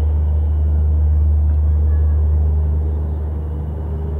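Diesel locomotive engine running with a steady low drone, easing off slightly about three seconds in.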